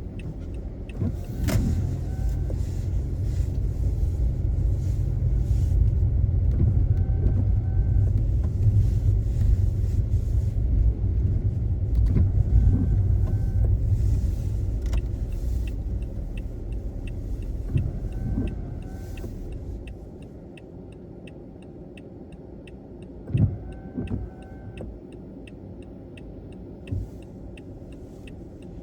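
A car driving on a snowy road, heard from inside: a steady low road rumble that falls away about two-thirds of the way through as the car slows. The windscreen wipers sweep about every five and a half seconds, with a sharp knock near the end.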